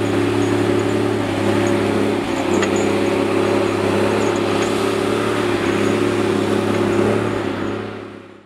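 John Deere 540G-III cable skidder's diesel engine running steadily under load as the machine drives through snow, its note fading out near the end.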